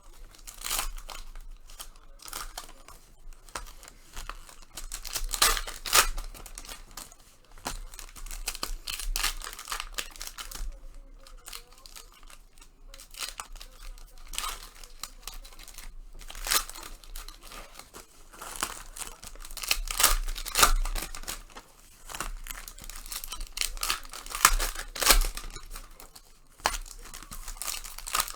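Panini Prizm basketball card pack wrappers being torn open and crinkled by hand, a string of irregular sharp tears and rustles with louder clusters now and then.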